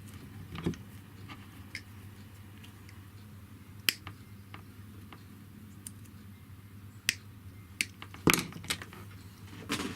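Scattered sharp clicks and knocks of small metal parts and hand tools being handled on a workbench during rewiring. The loudest knock comes about eight seconds in, over a faint steady low hum.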